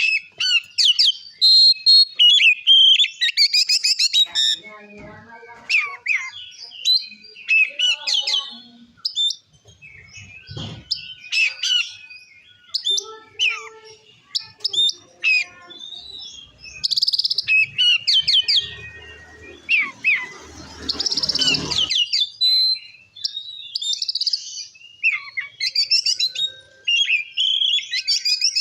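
Oriental magpie-robin singing a loud, varied song of rapid whistles and chirps, the full open 'ngeplong' song that keepers play to rouse other magpie-robins. A rush of noise runs under the song for a few seconds a little past halfway.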